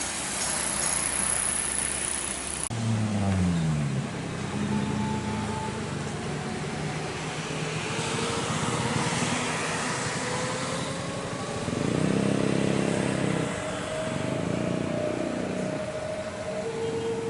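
Motor vehicles running past, engine pitch falling and rising over a steady traffic noise, with an abrupt change in the sound about three seconds in.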